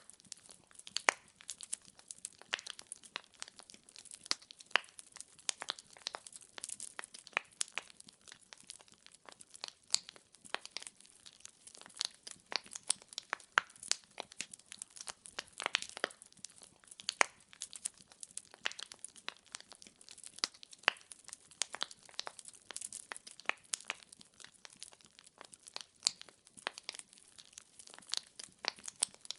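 Wood fire crackling: logs burning with many irregular sharp pops and snaps over a faint hiss.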